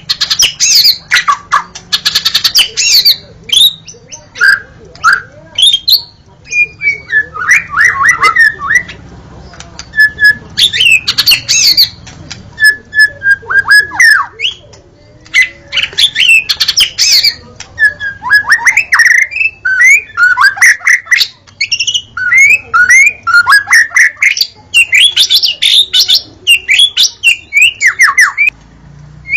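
White-rumped shama (murai batu) singing continuously: a long, varied song of loud whistles gliding up and down, mixed with strings of fast, sharp chattering notes, phrase after phrase with only short pauses.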